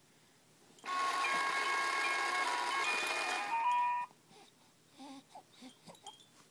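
A short electronic tune of plain beeping notes from a baby's musical toy, playing for about three seconds, then a few soft infant coos.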